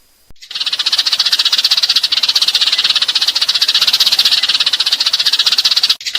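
An animal's rapid, high-pitched pulsing trill, held steadily for about five and a half seconds and cutting off suddenly near the end.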